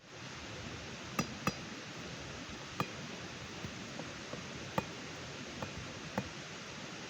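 Campfire crackling: a steady hiss with sharp, irregular pops every second or two.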